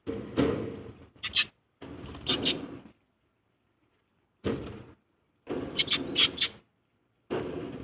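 A bird calling in a series of about six harsh, squawking bursts, each half a second to a second long, with short silent gaps between.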